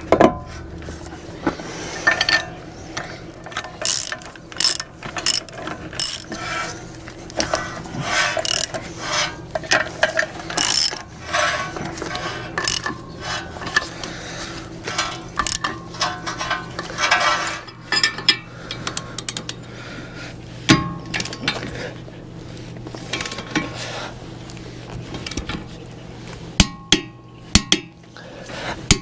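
Ratchet wrench clicking in quick runs while the bolts of a truck's front wheel hub assembly are run in and tightened, with a few separate sharp clicks near the end.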